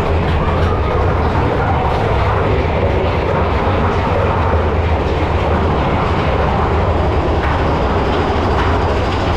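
Big Thunder Mountain Railroad mine-train roller coaster running along its track, heard from aboard the train: a steady, loud rumble of the wheels with a deep low drone underneath.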